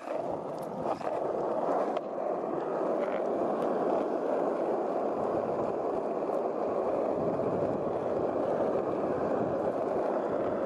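Steady rushing rumble of wheels rolling fast over asphalt, even and unbroken throughout.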